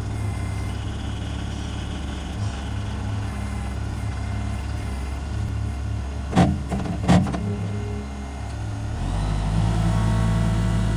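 Kubota compact tractor's diesel engine running steadily, with two sharp knocks about six and a half and seven seconds in. Near the end the engine grows louder and steps up in speed.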